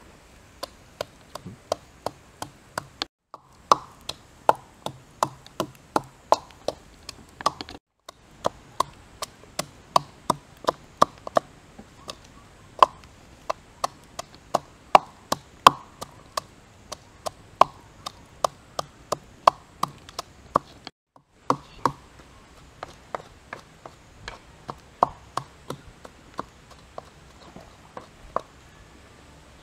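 Wooden pestle pounding into a coconut-shell bowl, crushing salt and chilli: a steady run of sharp knocks about two or three a second, with a few short breaks where the sound cuts out.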